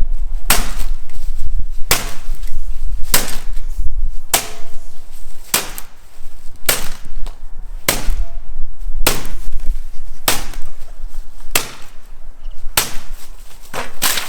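Repeated sharp strikes, about one every 1.2 seconds and evenly spaced, a dozen in all, over a steady low rumble.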